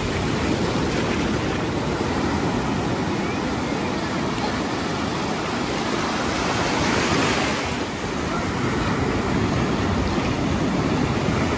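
Ocean surf washing onto a beach, a steady rush with one wave surging louder about seven seconds in.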